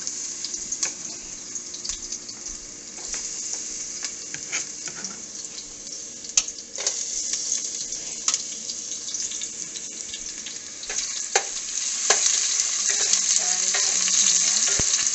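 Chopped garlic sizzling in hot oil in a pot, stirred with a wooden spatula that clicks and scrapes against the pan. The sizzle grows louder about eleven seconds in.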